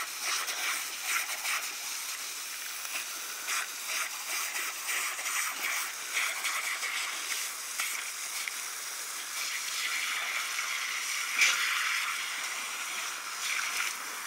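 Garden hose spraying water onto wet gravel, a steady hiss broken by irregular splashes and slaps as two dogs bite and snap at the jet.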